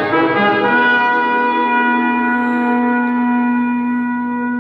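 Orchestral soundtrack music: a brief fading brass chord, then a single wind-instrument note held steady from under a second in.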